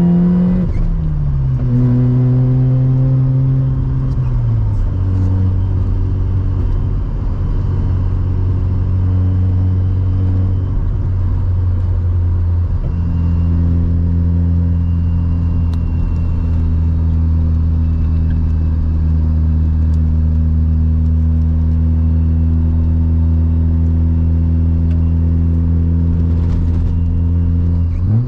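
Sports car engine heard on board during a mountain-road drive. Its pitch falls at the start as the revs drop, steps lower twice, then holds at steady revs for the last half, with a quick rise right at the end.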